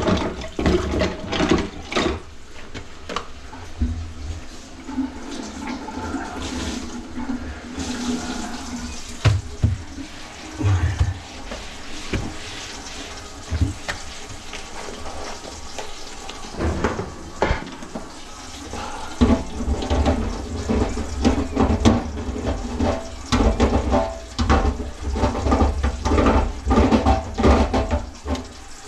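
Water running and gurgling in a kitchen sink and its drain, with repeated knocks and clatter throughout.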